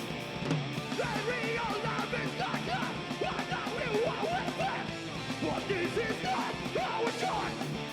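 Live rock band playing: electric guitars with sliding, bending lines over drums with a steady cymbal beat.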